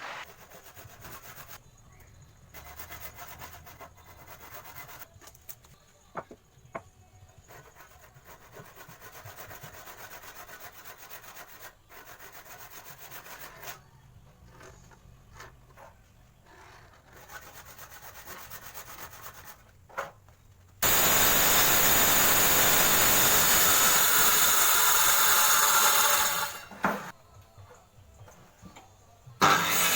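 Homemade table saw cutting wood: a loud steady noise starts about two-thirds of the way in and lasts about five seconds. Before it there is quieter scraping and handling with a few clicks.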